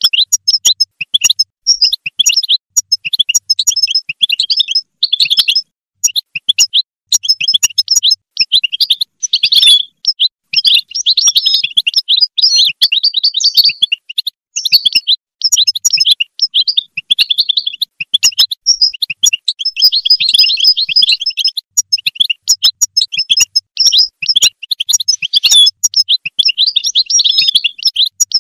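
European goldfinch singing: long runs of fast, tinkling twitters and chirps in phrases a few seconds long, broken by short pauses.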